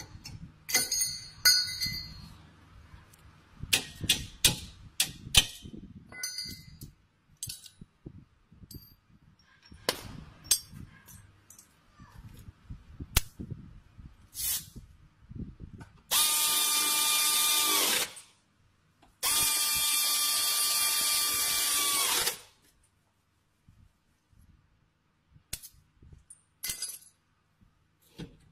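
Metal tools clinking and knocking on leaf-spring hardware, then an air-powered wrench runs in two bursts of about two and three seconds, tightening fasteners on a van's rear leaf-spring assembly.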